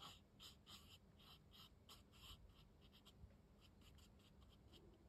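Faint, quick scratchy strokes on rough cotton rag watercolour paper, a few a second, as paint is worked onto a swatch.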